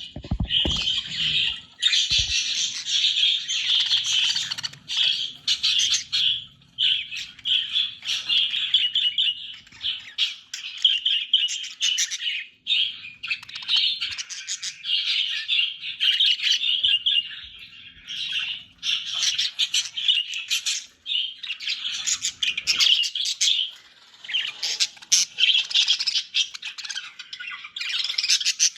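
Budgerigars chattering and warbling without a break, a busy mix of quick chirps and harsh squawks. A few low thumps come in the first couple of seconds.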